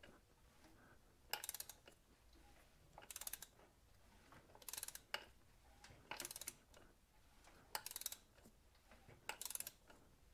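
Socket ratchet clicking faintly in about seven short bursts, one every second and a half or so, as it is swung back and forth to turn an Audi 3.0T V6's crankshaft over by hand, checking that the engine still turns freely.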